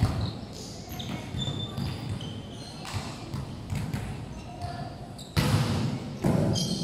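Indoor volleyball rally on a hardwood court: sharp smacks of the ball being hit, the loudest near the end, with short high shoe squeaks in between, echoing in a large sports hall.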